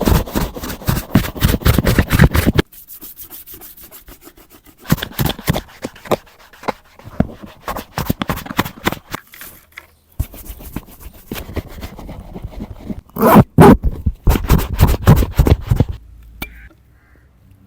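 Brush and rubbing strokes scrubbing dirty leather boots, in quick runs of short strokes broken by quieter pauses.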